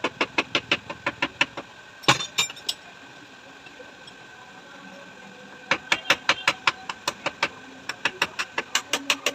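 Quick metallic taps on a motorcycle mono-shock absorber, about six a second, as its seal is worked loose with a screwdriver. The taps come in two runs, with one heavier knock about two seconds in and a quieter stretch in between.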